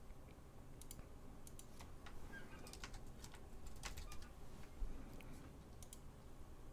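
Computer keyboard being typed on: faint, irregular keystroke clicks as a username and password are entered.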